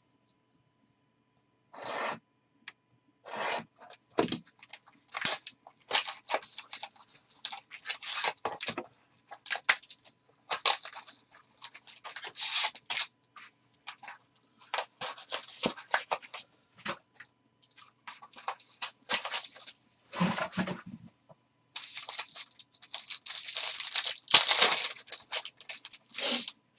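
Plastic wrapping on trading-card packs crinkling and tearing as the box and packs are opened by hand. The bursts are irregular, with a longer run of crinkling and tearing near the end.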